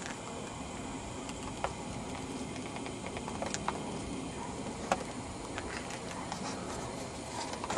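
Steady outdoor background noise with a handful of short, sharp clicks, the loudest about two seconds and five seconds in.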